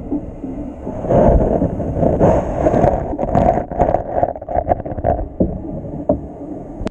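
Muffled water churning and bubbling as picked up by a camera submerged in an aquarium, with irregular short knocks in the second half.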